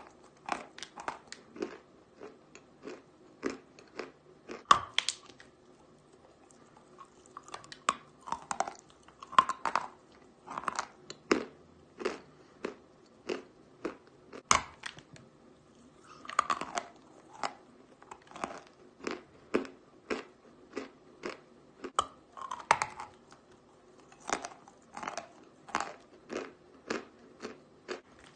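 Natural white chalk being bitten and chewed close to the microphone: crisp, dry crunches in runs of about one to two a second, broken by a few short pauses, with a few sharper single bites standing out.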